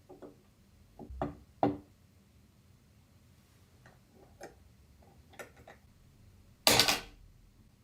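Light clicks and taps from handling computer parts and their packaging, a few stronger ones early and fainter ticks later, then one louder, noisier handling sound about a second before the end.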